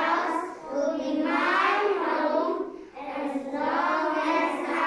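A group of young children singing together in unison, in three phrases with short breaks between them.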